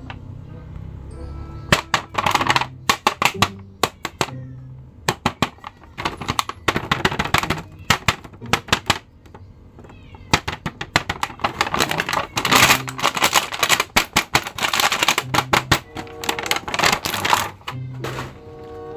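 Clear plastic blister packaging crackling and clicking in rapid clusters as a toy figure's pack is handled and opened, densest about two-thirds of the way through. Background music with a low repeating bass line runs underneath.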